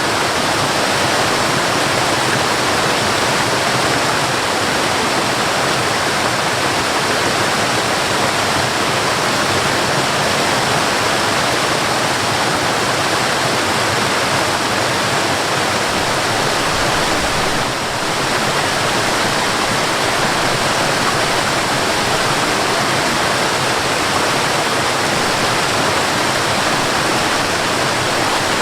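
Mountain waterfall: water falling and rushing in a steady, unbroken wash of noise, dipping slightly in level for a moment about eighteen seconds in.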